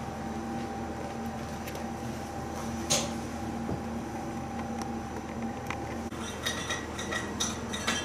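Steady indoor hum with a single sharp click about three seconds in; the hum stops about six seconds in and a run of short, light clinks follows.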